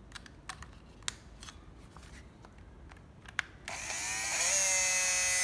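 A few light clicks from handling the Makita 12V cordless drill, then its motor starts about two-thirds of the way in, rising in pitch as it spins up and then running at a steady speed.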